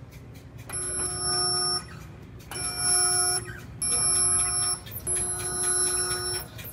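Resistance spot welder firing four welds through its squeeze-type gun, each weld a steady electrical buzz lasting about a second, with short pauses between them.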